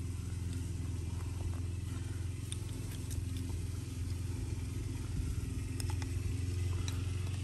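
An engine running steadily as a low drone throughout, with a few light clicks and scrapes of a hand trowel digging in dry, stony soil.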